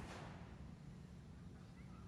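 Near silence: a faint low outdoor rumble, with the echo of a firework report dying away at the start.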